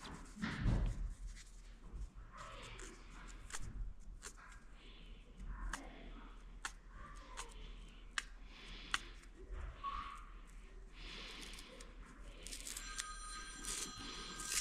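Scattered clicks, taps and rustling from hand work on an engine wiring harness, with a thump about a second in. Near the end a short electronic tone pattern sounds, like a phone ringtone.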